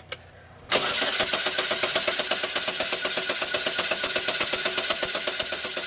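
2012 Chevy Sonic's 1.8-litre four-cylinder being cranked over by its starter in clear-flood mode, with fuel cut so it turns over with a fast, even rhythm and does not fire. The cranking starts about 0.7 s in.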